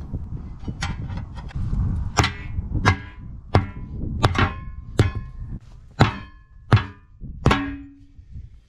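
About ten hammer blows, one every two-thirds of a second or so, each with a short metallic ring, as the old tire is beaten loose from a steel tractor wheel rim to break the bead.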